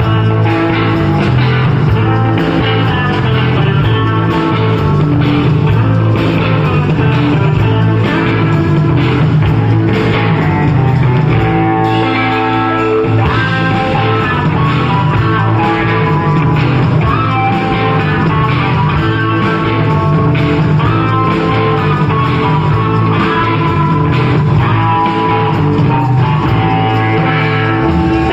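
Rock music with guitars, bass and drums playing at a steady loudness.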